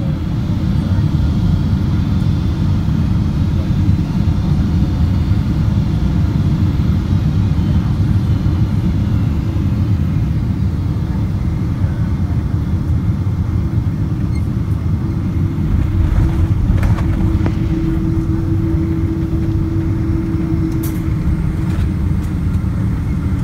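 Steady rumble of engine and airflow noise inside the passenger cabin of a Boeing 777-200 airliner on approach. A low hum joins in for a few seconds about two thirds of the way through.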